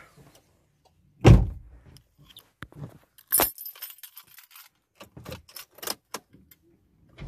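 One heavy thump about a second in, then the jangle and clicks of a car key and keyring being fitted and turned in a Suzuki Liana's ignition, with a few more light clicks near the end.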